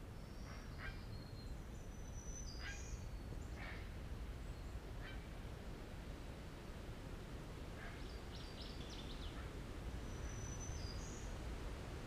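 Songbirds calling in woodland: a few short, high whistled notes with an upturned end and scattered sharp chips, with a quick run of notes about eight seconds in, over a steady low background rumble.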